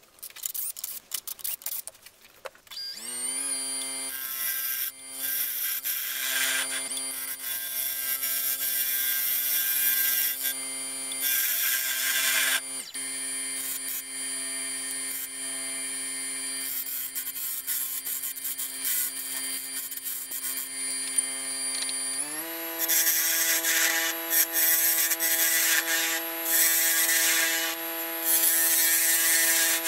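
A woodturning lathe's motor spins up a few seconds in to a steady whine, with the hiss of a gouge cutting into a large spalted wood blank in stretches. About three quarters of the way through, the speed is raised and the whine steps up in pitch, then it stops near the end.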